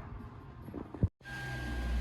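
Low handling noise and one sharp knock about a second in, then an abrupt cut to a low steady hum with a faint steady high tone.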